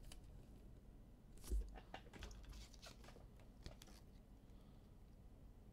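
Trading cards and pack wrappers being handled, faintly: scattered small clicks and crinkles, with one soft low thump about one and a half seconds in.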